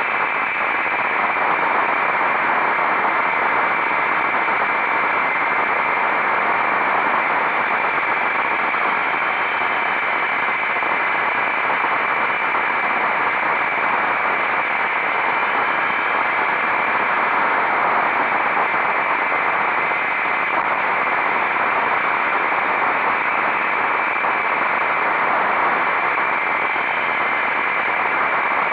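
Steady rush of wind noise on the microphone of a motorcycle riding at speed, with no engine note standing out.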